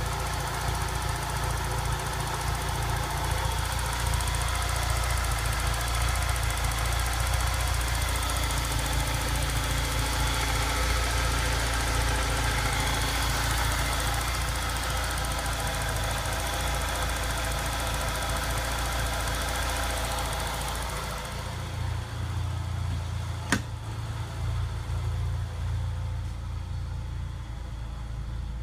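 Peugeot 406 engine idling steadily, warming up to normal operating temperature with flush and water in the cooling system. About three-quarters of the way through the sound turns duller, and a single sharp click follows shortly after.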